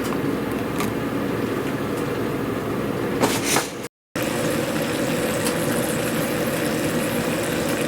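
Thin-sliced meat frying in butter in a cast-iron skillet: a steady sizzle over a low steady hum. About three seconds in there is a brief louder rush, then the sound cuts out for a moment and resumes.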